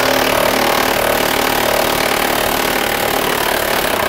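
Handheld cordless power tool running steadily at full speed, driving a rusted fastener on the trailer hitch under the bumper.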